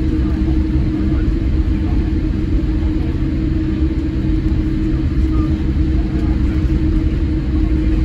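Steady, even rumble of a Boeing 787-8 Dreamliner's engines and airflow heard inside the passenger cabin, with a steady low hum over it.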